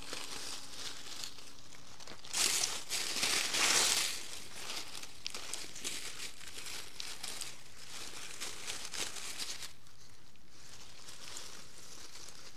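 Dry fallen leaves crackling and rustling as hands dig into the forest floor and pull up ramps, with a louder, busier stretch of crackling about two and a half seconds in that lasts a second or two.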